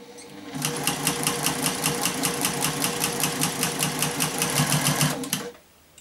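Domestic electric sewing machine with a walking foot stitching through layered fabric: a rapid, even clatter of needle strokes over a steady motor hum. It builds up just after the start and stops about five and a half seconds in.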